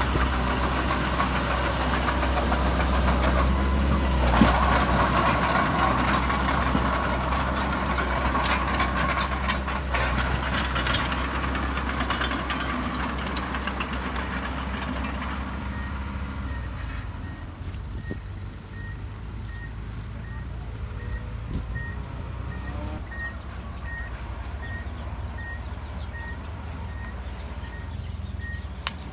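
Heavy diesel earthmoving machinery running hard, with a deep steady drone and clatter, easing off about halfway through. After that a reversing alarm beeps at an even pace.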